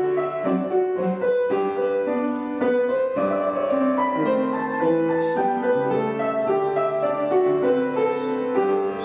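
Piano playing a classical piece as accompaniment for ballet barre exercises: a melody over held chords, flowing without a break.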